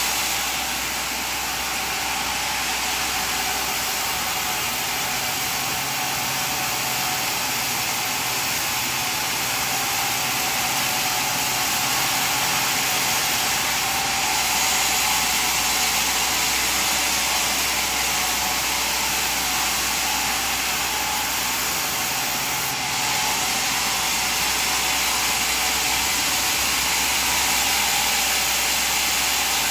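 Steady running noise of sawmill machinery, an even whir with a low hum underneath and no distinct cuts or pauses.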